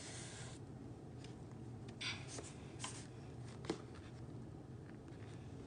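Faint handling noise of fingers rubbing and pressing on an iPad's glass screen protector, with a few small clicks and scrapes, the sharpest about two thirds of the way in, over a steady low hum.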